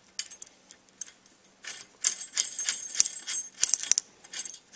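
Hex bolt and brass washer clinking and jingling against the threaded end of a steel axle as the bolt is fitted and turned in by hand. Light metallic clicks, a few at first, then a busy run from about two seconds in.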